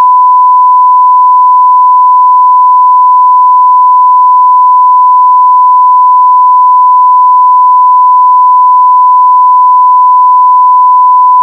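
Loud, steady, pure test tone held at one pitch: the line-up reference tone that goes with broadcast colour bars.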